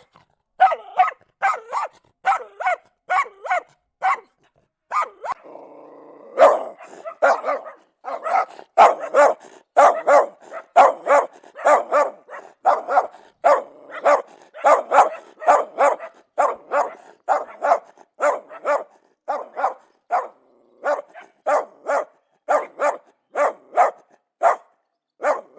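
Dogs barking over and over, about two barks a second, with a short pause about four seconds in and a denser run of barking through the middle.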